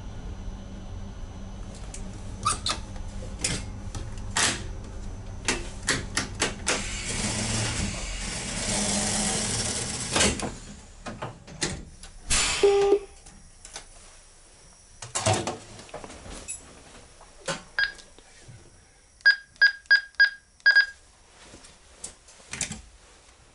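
Controls on the driving desk of an ICM train cab being operated: a run of sharp switch clicks and knocks, a rushing noise that swells and cuts off suddenly about ten seconds in, then five quick high beeps near the end.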